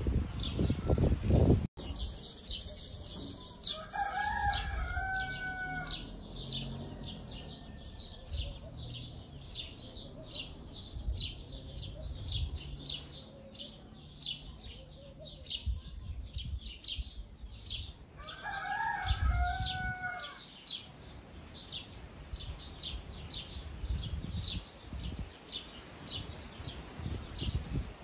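A rooster crows twice, about fifteen seconds apart, over small birds chirping steadily about twice a second. A loud low rustle of handling noise comes at the very start.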